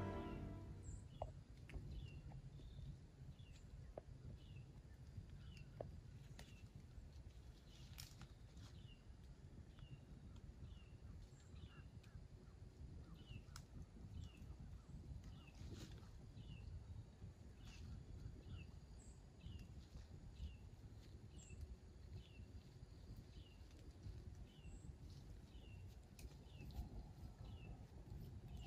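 Faint woodland quiet with a bird giving a short, high call about once a second, and a few faint clicks.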